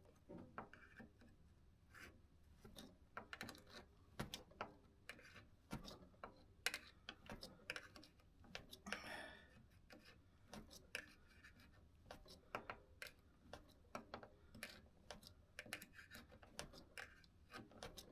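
Faint, irregular small metallic clicks and taps from handling a bicycle spoke and its nipple with pliers while lacing a wheel, with a short scrape about halfway through.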